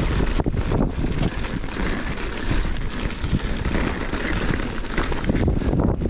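Wind buffeting the camera microphone over the rumble and crunch of mountain bike tyres on loose dirt and gravel during a downhill ride, with frequent small knocks and rattles from the bike over the rough trail.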